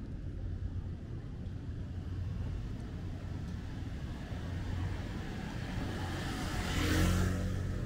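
Street traffic with a steady low rumble. A motor vehicle passes close by, growing louder to a peak about seven seconds in and then falling away.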